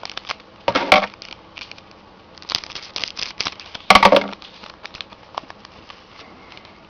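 Trading card pack wrapper being torn open and crinkled, with sharp clicks and rustles as the cards are handled; two louder bursts of crackling, about a second in and about four seconds in.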